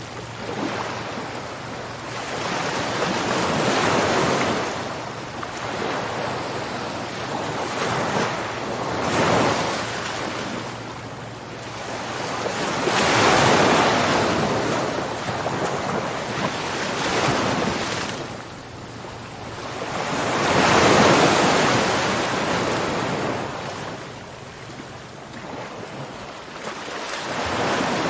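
Ocean waves breaking and washing on a shore, each swell of surf rising and falling away every few seconds, the biggest ones about thirteen and twenty-one seconds in.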